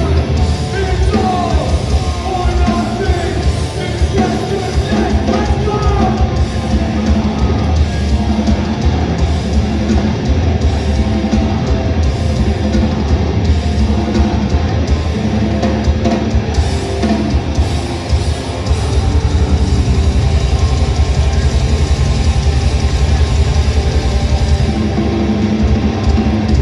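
Live hardcore punk band playing loud, with distorted guitars, drums and yelled vocals; the music gets louder about two-thirds of the way through.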